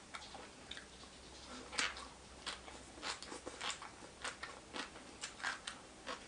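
A person chewing a mouthful of raw tuna and papaya salad close to the microphone: a string of short, irregular mouth clicks and smacks, a few each second.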